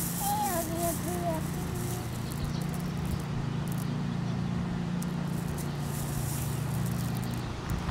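Pea gravel crunching and trickling as a toddler digs her hands into it, with a brief babble from her in the first two seconds, over a steady low hum.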